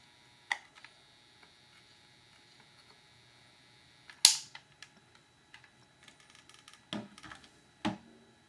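Sharp clicks and knocks of tools and small parts being handled on a wooden workbench during soldering. The loudest is a single sharp crack about four seconds in, with smaller knocks near the start and twice near the end. A faint steady electrical hum stops at the loud crack.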